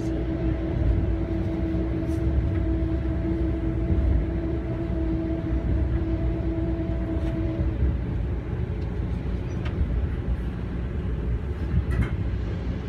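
Passenger train running, heard from inside the car: a steady low rumble of wheels on the track, with a steady hum over it that stops about eight seconds in.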